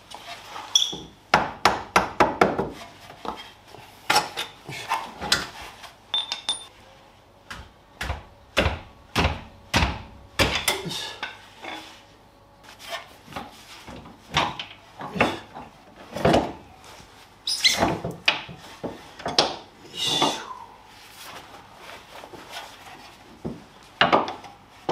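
Metal tools and rear suspension parts of a Mazda RX-7 FD3S clinking and knocking while the suspension is taken apart to pull the drive shafts: irregular sharp knocks and clinks, a few with a brief metallic ring.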